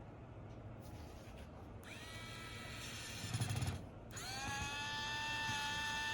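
Small electric precision screwdriver running twice, driving a screw back into a Samsung S23: two whines of about two seconds each, each rising in pitch as the motor spins up and then holding steady, the second one louder.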